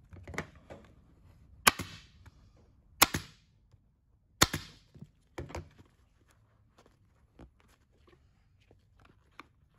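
Pneumatic upholstery staple gun firing staples through the vinyl seat cover into the seat pan, about five sharp shots roughly a second and a half apart, the middle three the loudest. Light handling of the vinyl follows.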